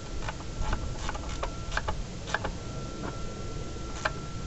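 Ratchet spanner clicking in short, irregular ticks, about two a second, as nuts are tightened down.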